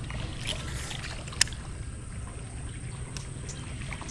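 Low, steady rumble of water around a small fishing boat, with a few light ticks and one sharp click about a second and a half in, while a lure is cast toward the bank.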